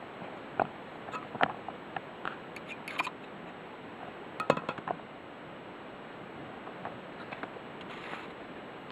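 Scattered light clicks and taps of a small object being handled, over a steady hiss, with a cluster of louder clicks about four and a half seconds in and only faint ticks after that.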